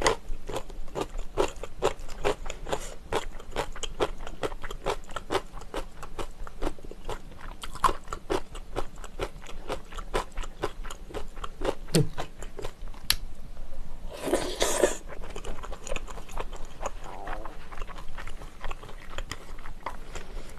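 Close-miked crunching and chewing of kkakdugi (cubed radish kimchi): a rapid run of crisp crunches, about three or four a second, for the first twelve seconds or so. A short rushing noise about fourteen seconds in, then softer, wetter chewing.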